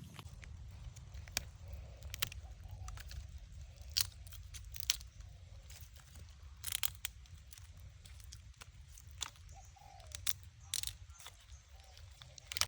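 Irregular crunches and sharp clicks, the loudest about four, five, seven and eleven seconds in, over a steady low rumble.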